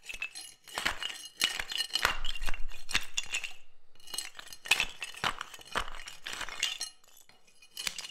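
Metal pry lever prying at tightly packed parquet wood blocks: rapid sharp clinks and knocks of steel on wood in two busy runs, with a short pause between them and a quieter stretch near the end.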